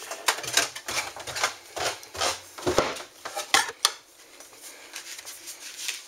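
Hard plastic feeder tray holding dry cat kibble being handled and carried, giving irregular clicks and clatters, busiest in the first few seconds and sparser after.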